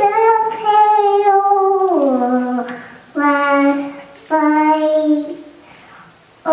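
A little girl singing into a microphone without accompaniment, holding long notes in three short phrases with brief pauses between.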